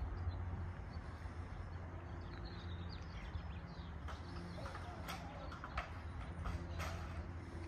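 Outdoor ambience: a steady low hum with faint bird chirps and a few light ticks between about three and seven seconds in.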